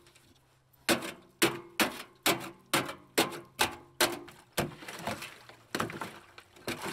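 A wooden stick jabbed again and again into the frozen surface of a galvanized metal stock tank to break the ice on the animals' drinking water. About a dozen sharp knocks, roughly two a second, each with a short ring.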